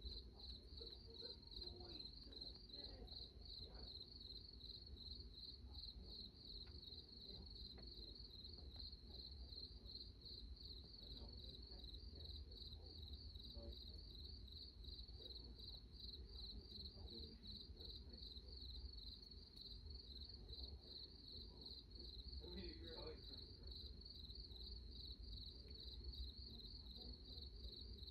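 Cricket chirping in rapid, even pulses, steady throughout, over a faint low hum.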